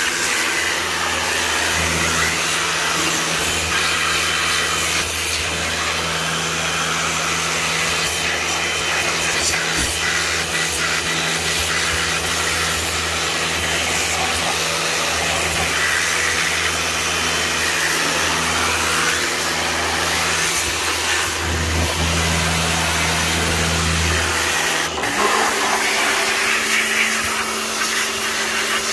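A pressure washer running steadily, its motor humming under the hiss of the water jet spraying over a car engine and engine bay. About 25 seconds in, the motor's hum changes to a different pitch.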